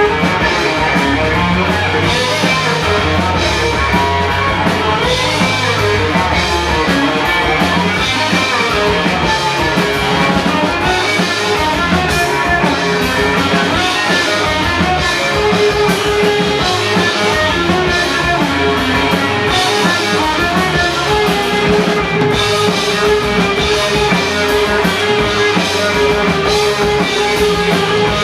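Loud rock music with drums and guitar, an instrumental stretch without singing, with a note held steadily from about halfway through.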